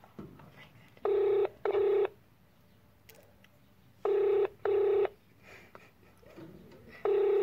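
Phone ringback tone of an outgoing call waiting to be answered: a low steady tone in double rings, ring-ring, every three seconds. There are two full double rings and the first ring of a third near the end.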